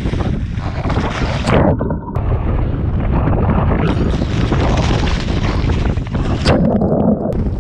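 Strong gusty wind buffeting the microphone in a steady low rumble, with two brief louder gusts, about one and a half seconds in and near the end.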